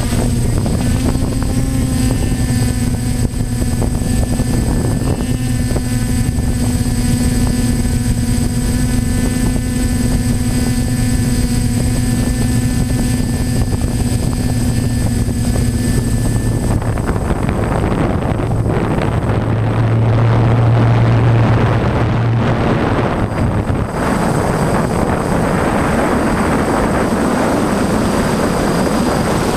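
DJI F550 hexacopter's six electric motors and propellers humming steadily in flight, with wind rushing over the onboard camera's microphone. About two-thirds of the way through the steady hum fades and the wind rush takes over, swelling briefly a few seconds later.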